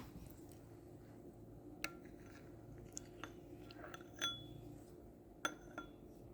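Scattered light clinks and taps of kitchenware being handled, about six in all, some ringing briefly; the loudest comes a little over four seconds in.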